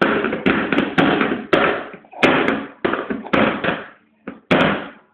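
Empty plastic mug banged down again and again on a plastic high-chair tray by a baby, roughly two knocks a second, each knock dying away quickly.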